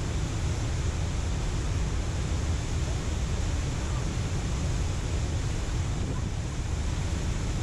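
Steady rush of water pouring through a dam spillway, an even noise heaviest in the low end with no breaks.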